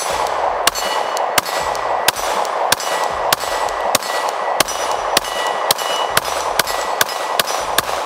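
Glock pistol fired in a steady string of about fifteen shots, under a second apart and speeding up toward the end. Many shots are followed by a short metallic ring.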